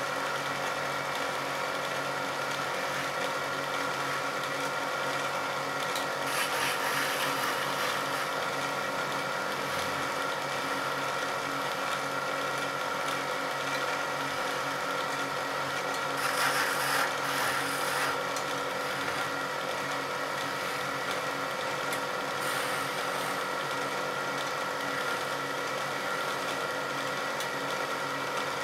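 A small motor-driven wood lathe runs steadily while a hand chisel scrapes and cuts a spinning wooden spindle. Louder cutting stretches come about six seconds in and again around sixteen to eighteen seconds.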